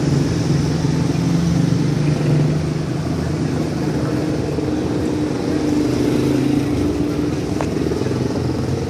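A vehicle engine running steadily with a low hum, mixed with street traffic noise, heard from inside the vehicle.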